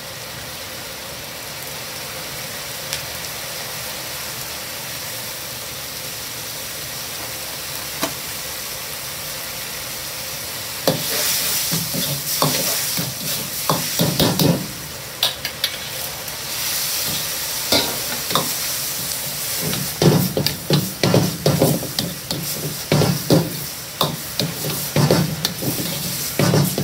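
Mapo sauce sizzling in a wok on a gas burner, a steady hiss for the first ten seconds or so. Then the frying grows louder and a metal ladle repeatedly scrapes and knocks against the wok as mapo eggplant with green peppers is stirred and tossed.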